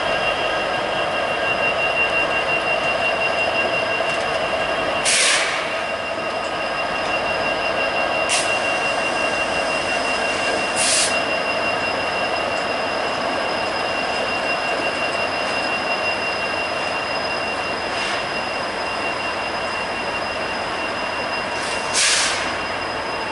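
Canadian Pacific freight train rolling slowly past, its locomotives and covered hoppers on the rails. Its wheels squeal in several steady high-pitched tones over a constant rolling noise. A handful of brief sharp noises break in, three of them louder than the rest.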